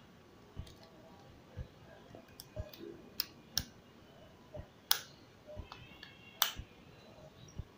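Sharp, irregular plastic clicks and snaps as a Transformers Titans Return Alpha Trion action figure is handled and its parts clicked into jet mode, the loudest few near the middle and one near the end, with faint low knocks in between.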